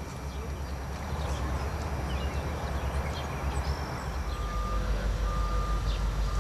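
Low, steady rumble of vehicles or machinery with scattered short high chirps; about four seconds in, a vehicle's reversing alarm starts beeping in long, evenly spaced beeps.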